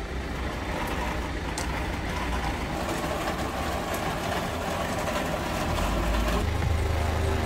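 A vehicle engine running, a steady noisy rumble with no distinct knocks. Background music comes back in near the end.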